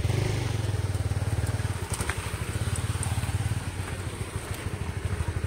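Honda Supra single-cylinder four-stroke motorcycle engine, bored out to 200cc with a four-valve head, idling just after starting. Its exhaust beats out a steady, even chop like a helicopter.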